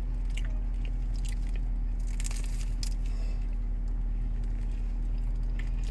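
Bites and chewing of a crunchy vegetable roll close to the mouth, with scattered crisp crackles, most of them in the first three seconds. Underneath runs a steady low hum inside a car.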